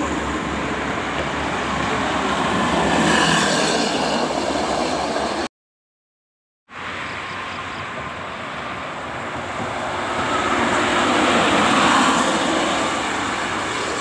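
Highway traffic with buses passing: a steady rush of tyre and engine noise that swells as each bus nears. It drops out for about a second midway.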